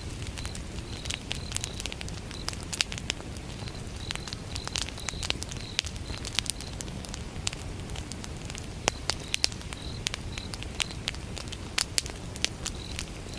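Wood fire burning with irregular sharp crackles and pops over a low steady rumble, while crickets chirp in short, evenly repeated high pulses throughout.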